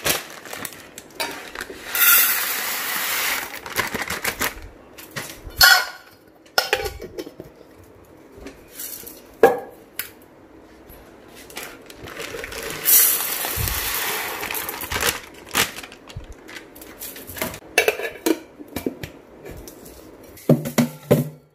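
Stainless steel storage tins and lids clinking and knocking as they are handled and set down. Twice there is a longer stretch of dry toor dal grains rattling and sliding against the steel of a tin.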